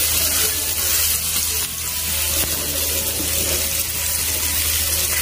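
Masala-coated silver pomfret sizzling steadily in hot rice bran oil in a frying pan, just laid in to fry.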